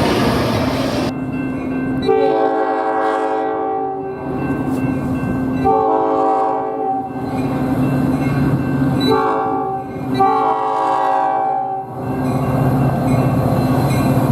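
Metra locomotive 167's multi-chime air horn sounding the grade-crossing signal: two long blasts, a short one and a long one, each a steady chord. The train's engine and rolling rumble run underneath and carry on after the horn stops.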